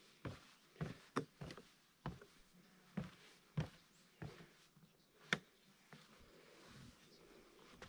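Footsteps of a hiker walking on a trail, a steady series of crunching steps about one to two a second, the loudest about five seconds in, after which the steps grow faint.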